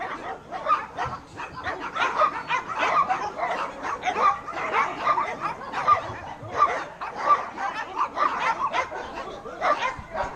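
Several dogs in kennel runs barking and yipping together in a steady stream of short, overlapping barks.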